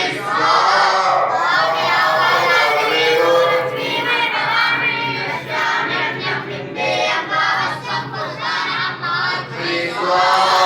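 Group of young boys chanting in unison, many voices together with a sung, chant-like pitch.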